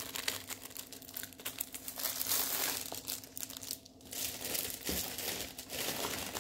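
Clear plastic packaging of a diamond painting kit crinkling as it is handled, in uneven bursts with a brief lull about four seconds in.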